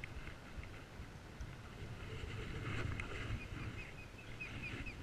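Adult osprey giving a rapid run of short, high whistled alarm calls, starting about halfway through, while its nest is being disturbed. Under the calls is a low steady rumble.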